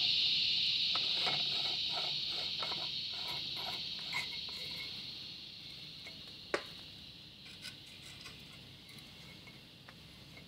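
Light metallic clicks and ticks as a valve spring compressor is screwed down onto a valve spring of a Honda outboard cylinder head, with one sharper click a little past the middle. A steady high-pitched buzz runs behind them and fades away gradually.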